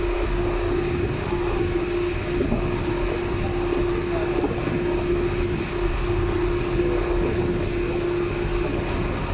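Engine of a motorized outrigger boat running steadily underway: a constant drone with one steady hum over the rush of wind and water.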